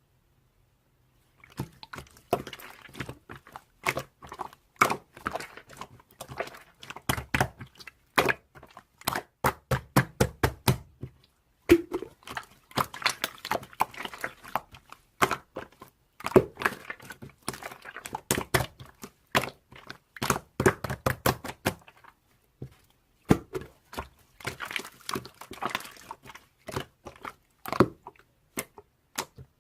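Slime being squeezed, stretched and poked by hand, giving dense runs of sharp clicking and popping sounds as air pockets burst. The clicks come in flurries, with a couple of brief pauses.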